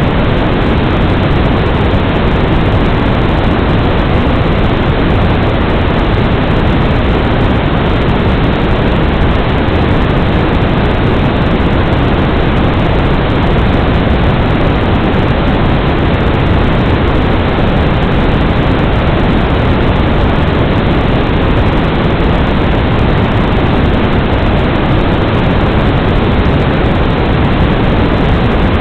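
Steady, loud static hiss from an analog FPV video receiver picking up no signal, unchanging throughout.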